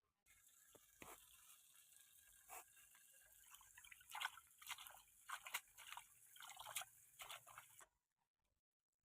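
Faint sizzling of fish cooking, a steady hiss with irregular crackles and pops that start and stop abruptly.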